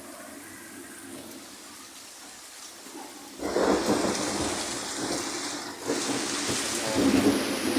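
Rainstorm at night: steady rain, then about three and a half seconds in a much louder rush of heavy rain and wind sets in suddenly and keeps on.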